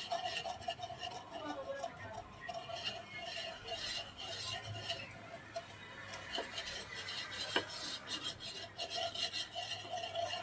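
Wooden pestle grinding naphthalene mothball lumps into fine powder in a wooden mortar: an irregular gritty rubbing and scraping.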